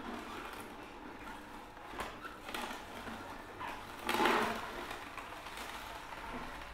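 Optimum 700 slow masticating cold press juicer running, its auger crushing celery sticks fed into the chute. A few clicks, and a louder crunch about four seconds in.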